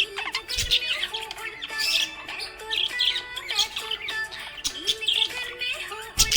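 Budgerigars chirping and warbling in a rapid, continuous chatter of short high calls, over faint steady background music.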